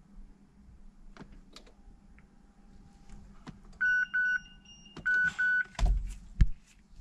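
Dashboard warning chime of a 2010 Mazda 6 beeping in two quick pairs amid clicks from the ignition key being cycled to 'on' to prime the fuel pump, followed by a few low thumps, the last the loudest.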